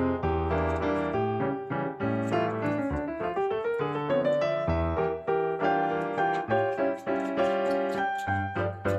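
Background piano music: a busy melody of quick notes over a steady bass line.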